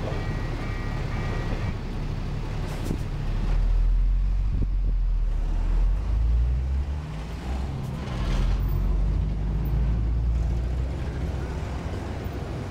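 A level-crossing warning signal sounds its steady electronic tone for the first couple of seconds, then stops. Heavy trucks' diesel engines then rumble as they pull away across the crossing, loudest in the middle.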